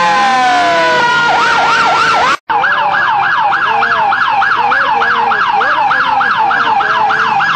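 Fire apparatus sirens: several overlapping wails slide down in pitch, then an electronic siren runs a fast yelp, about four sweeps a second. The sound drops out for a split second about two and a half seconds in, at a cut in the recording.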